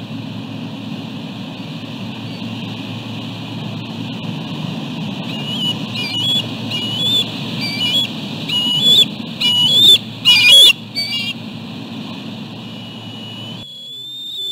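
Bald eagles calling: a run of short, high chittering notes that come faster and louder, peaking about ten seconds in. Behind them is a steady rush of wind and surf on the nest-cam microphone.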